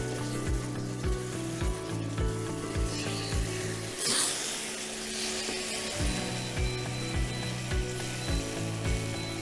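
Marinated chicken sizzling in a pan as it is stirred with a wooden spatula, over background music with a steady beat. For about two seconds midway the music drops out and the sizzling comes through louder.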